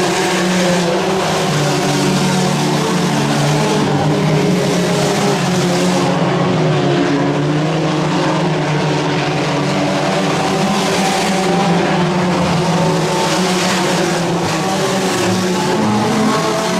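Four-cylinder IMCA Sport Compact race car engines running hard around a dirt oval: a loud, steady engine drone.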